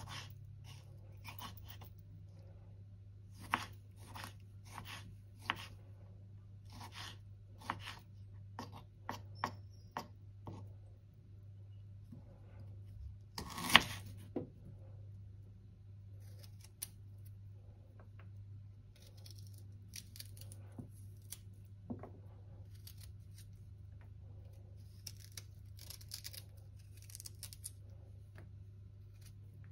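Kitchen food-preparation handling sounds: irregular short clicks and scrapes, with one louder clatter about fourteen seconds in, over a steady low hum.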